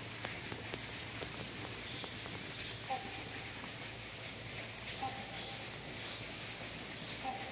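Quiet outdoor garden ambience: a steady hiss with a faint, high insect drone, and three short, faint calls about two seconds apart.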